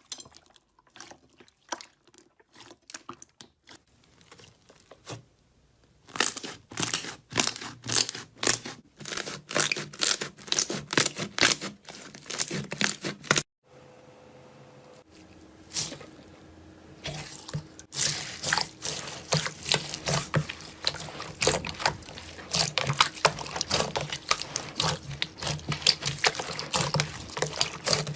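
Slime being squished, stretched and poked by hand, making quick wet, sticky pops and crackles. The sounds are sparse at first, louder and denser later on, with a brief break in the middle.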